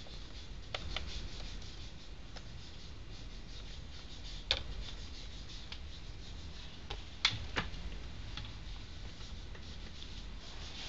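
Sparse small clicks and taps of handling, over a steady low hum. The sharpest click comes about four and a half seconds in, and a close pair comes near seven and a half seconds.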